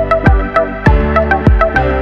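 Electronic background music with a steady kick-drum beat and short, plucked synth notes.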